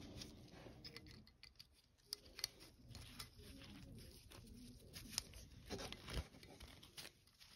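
Faint, scattered small clicks and taps of a steel cotter pin being worked into the castle nut of an ATV front axle with pliers, a few ticks a little louder than the rest.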